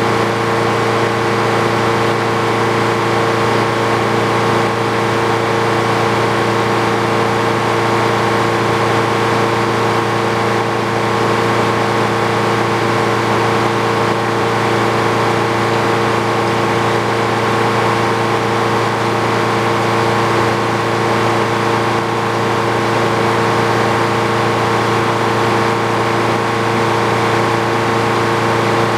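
Frick OO circular sawmill running steadily: the engine powering the mill and the spinning saw blade hum at a constant pitch and level.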